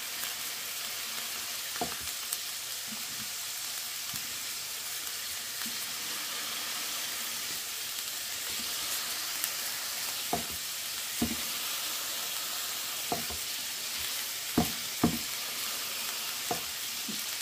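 Raw mince patties sizzling in oil in a hot nonstick frying pan, with a few short knocks as a plastic burger press is pushed down on one patty, the two loudest close together near the end.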